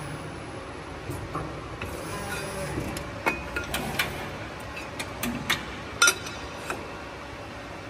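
CNC press brake running with a steady low hum, while sheet metal is handled against its backgauge: a string of sharp metallic clicks and knocks, the loudest about six seconds in as a sheet is pushed up to the backgauge fingers.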